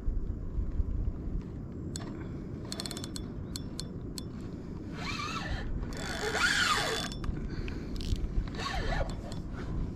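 Fishing reel clicking and rasping: a quick run of ratchet-like clicks about three seconds in, then longer rasping bursts around the middle and again near the end. Steady low wind rumble on the microphone underneath.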